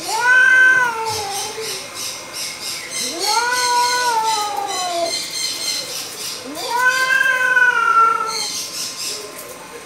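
Domestic cat yowling in a territorial standoff with another cat: three long, drawn-out caterwauls about three seconds apart, each rising quickly and then sliding slowly down in pitch.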